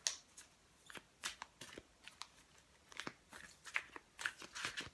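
A deck of oracle cards being shuffled by hand: irregular soft clicks and slaps of cards sliding against one another, a little busier near the end.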